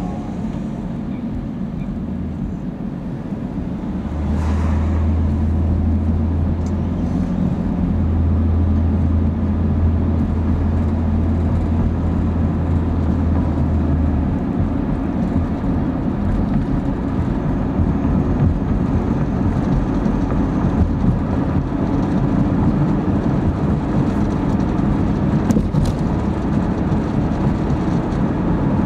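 Car cabin noise while driving: engine and tyre noise on the road. It grows louder about four seconds in, with a low engine drone until about fourteen seconds, then settles into steady cruising noise.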